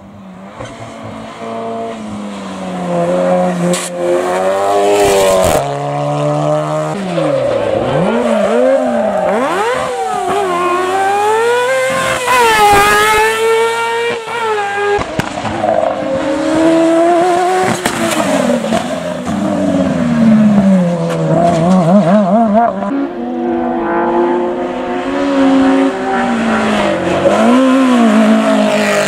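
Hillclimb rally car engines revving hard, the pitch climbing and dropping again and again through gear changes and lifts for corners. The sound jumps abruptly a few times as it switches from one car to the next.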